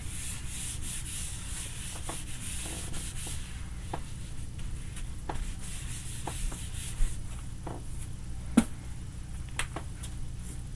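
Whiteboard eraser rubbing across a whiteboard in swishing strokes, followed by scattered light clicks and taps, one sharper click about two-thirds of the way through.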